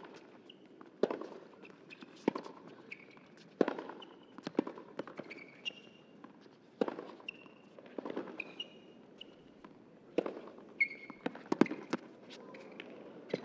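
Tennis rally on a hard court: racquets strike the ball about once a second, each a sharp pock, with short sneaker squeaks on the court surface between shots.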